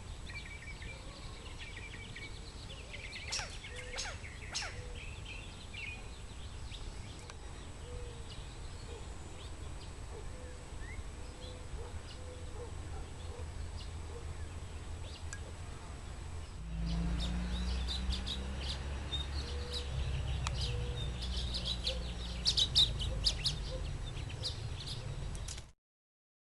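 Male California quails calling back and forth in short, scattered calls. From about two-thirds of the way through, a low rumble comes in under the calls, with a few sharp knocks near the end.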